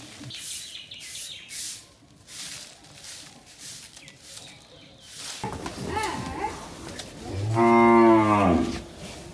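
A cow moos once, a long low call of a little over a second, near the end. Before it come a few swishes of a grass broom sweeping a dirt yard.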